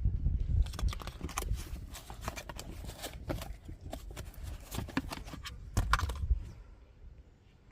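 Handling noise: an irregular run of clicks and knocks over a low rumble, with a loud cluster about six seconds in, fading out near the end.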